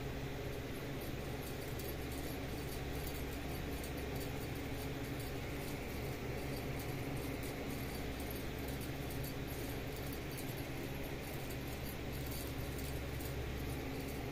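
Steady room noise with a constant low hum and faint high ticking, with no distinct event standing out.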